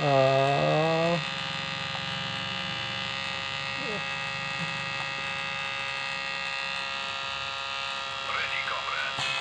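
Steady electric motor hum from a small 3D-printed antweight battlebot with its weapon running, a dense whine holding one pitch. A brief voice-like sound comes at the start.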